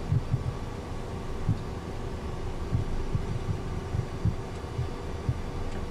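Steady engine and avionics hum inside a business jet's cockpit as it taxis, with irregular soft low thumps.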